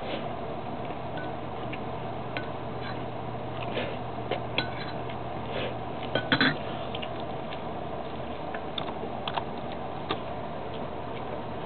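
Spoon and dish clinking during a meal: scattered light clinks, with a louder cluster about six seconds in, over a steady low hum.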